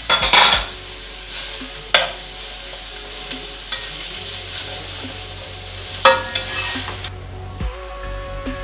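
Sliced red onions sizzling in a little cooking oil in a stone-coated frying pan as a spatula stirs them, with a few sharp knocks of the spatula against the pan. The sizzle drops away about seven seconds in and music comes in near the end.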